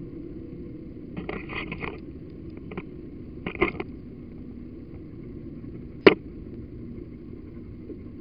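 Metal leash clips and chain leads rattling in short bursts, then one sharp click about six seconds in, over a steady muffled rumble.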